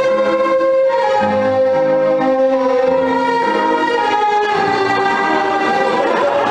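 Orchestral film score with a violin carrying long held notes over lower strings that change chord every second or so.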